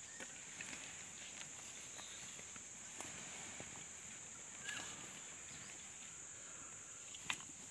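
Insects droning steadily in a high, even hum, with a scatter of short sharp clicks and scrapes, the loudest about seven seconds in.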